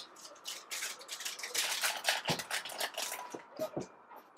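Hands crinkling and rustling a small packet in quick, crisp bursts. There are dull knocks about two seconds in and again near the end.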